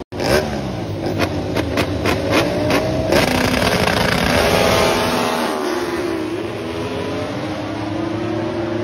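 Several MotoGP four-cylinder race bikes running on the grid. Sharp throttle blips crack out over and over for about the first three seconds, then several engine notes overlap, their revs dipping and rising.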